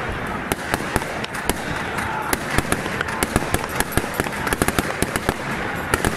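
Firecrackers going off in a rapid, irregular string of sharp bangs, several a second, over the steady noise of a large crowd.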